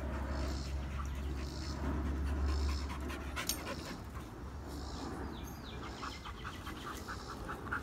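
Five-month-old wolfdog pup panting with quick, even breaths, about four a second, clearest in the second half. A low rumble underneath stops about three seconds in.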